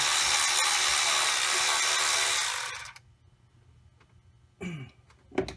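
Cordless power tool running steadily, driving out a 10 mm thermostat housing bolt, then cutting off abruptly about three seconds in. Two brief short sounds follow near the end.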